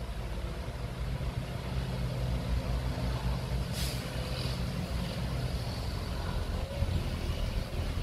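Heavy diesel engine of earth-moving machinery running steadily, with a short hiss about four seconds in.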